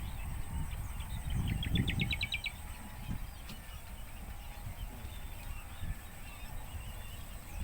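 Maya birds chirping. About a second and a half in there is a quick run of about nine short notes that step upward in pitch, with scattered faint chirps elsewhere and a low rumble underneath.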